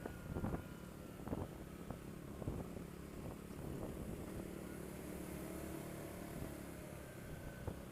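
ATV engine running steadily at low trail speed, with several knocks and rattles in the first few seconds.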